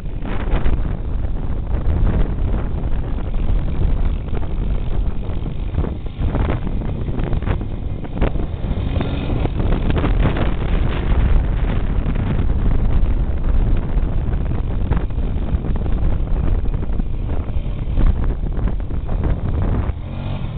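A rental ATV's engine running while it is ridden, with heavy wind buffeting on the microphone.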